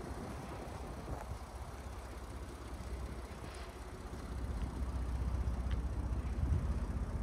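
2012 Ford F-150 pickup's engine idling steadily, the low rumble growing louder about halfway through.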